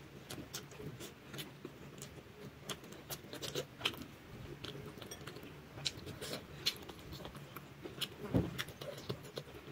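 Close-up mouth sounds of someone eating with their fingers: chewing with a run of wet clicks and lip smacks, and one louder knock about eight seconds in.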